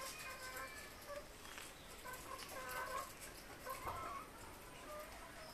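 Domestic chickens clucking faintly, short calls scattered throughout.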